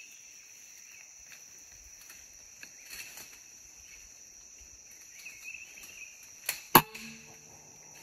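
Insects buzzing steadily in a high, even drone. Near the end comes a light click, then a single sharp crack from a PCP air rifle shot, followed by a brief faint ringing.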